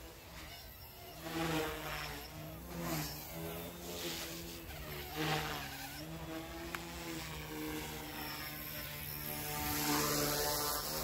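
Goosky S1 micro RC helicopter's electric motor and rotors running with a steady whirring hum that wavers a little in pitch. Several louder rushes of noise come through, about one and a half and five seconds in.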